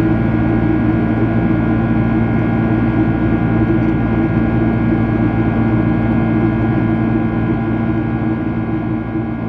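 Background music: a droning ambient track of sustained, ringing gong-like tones, beginning to fade out near the end.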